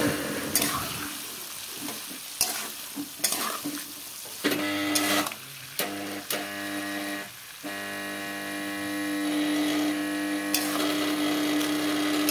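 Metal spatula stirring and scraping sliced onions and fried potatoes in hot oil in a kadai, with clicks of the spatula on the pan and a light sizzle. From about four seconds in, a steady hum runs underneath.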